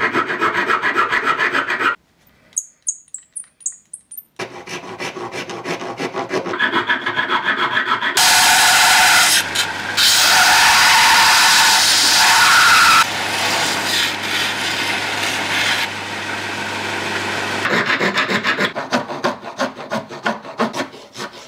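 Hand file rasping in quick, even strokes, stopping briefly and then resuming. About eight seconds in a belt grinder starts, running with a steady hiss over a low motor hum for about ten seconds as a part of the knife is ground on the belt. Near the end, rhythmic file strokes on the wooden handle take over again.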